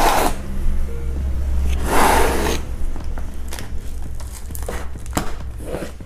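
Metal staples being prised out of a cardboard carton with a screwdriver: two long scraping rasps, then several sharp clicks and ticks as the staples come loose.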